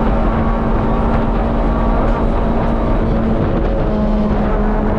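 Rally car engine running hard, heard from inside the cabin, a steady loud note that breaks off briefly about three and a half seconds in and picks up again.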